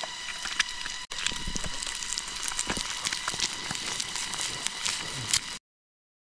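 Egg frying in oil in a small camping pan, a dense sizzle and crackle over a faint steady high hum. It drops out briefly about a second in and cuts to silence near the end.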